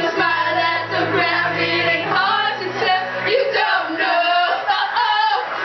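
A pop song with sung vocals playing.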